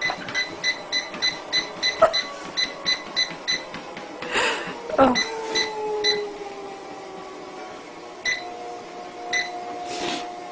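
Treadmill console beeping in a quick run of short beeps, about three a second, then a few more spaced-out beeps, as the speed is stepped down. Beneath the beeps the belt motor's whine falls in pitch and then holds steady.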